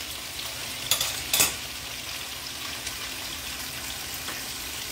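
Boneless, skinless chicken pieces sizzling steadily as they sear in a hot skillet, with two sharp knocks about a second in.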